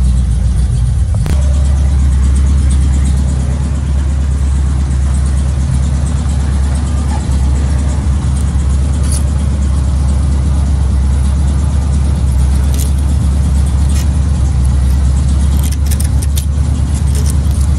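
Car engine idling steadily soon after a cold start. There is a single sharp knock about a second in, and a few light scraping ticks near the end as a plastic scraper works old tint off the side window glass.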